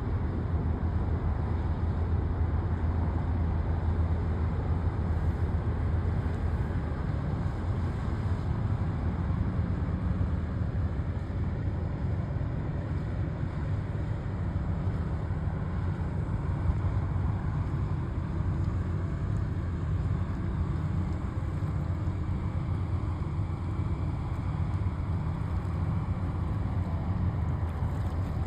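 Steady low engine drone of a large cargo ship under way, an even rumble with no change in pitch or level.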